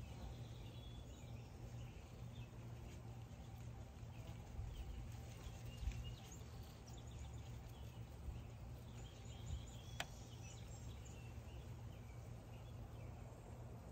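Faint outdoor ambience: scattered small bird chirps over a low, steady rumble, with one sharp click about ten seconds in.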